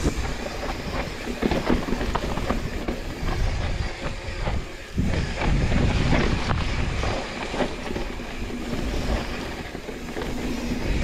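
Mountain bike rolling fast down a rough, dry dirt singletrack: tyres rumbling over dirt and ruts, with rattling and clicking from the bike over bumps. The rumble grows louder for a couple of seconds about halfway through.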